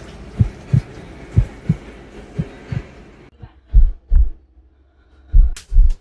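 Heartbeat sound effect, a low double thump about once a second, which about three seconds in becomes louder and slower, roughly one double beat every one and a half seconds.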